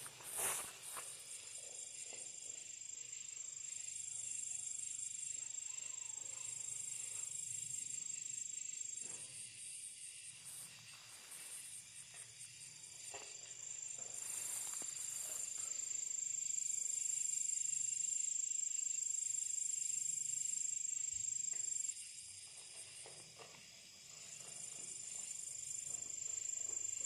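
Night insects trilling: a steady, high-pitched chorus that stops twice for a couple of seconds and starts again. A sharp knock sounds just after the start.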